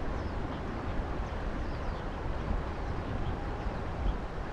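Wind buffeting the microphone: a steady, uneven low rumble of outdoor noise, with faint short high chirps now and then.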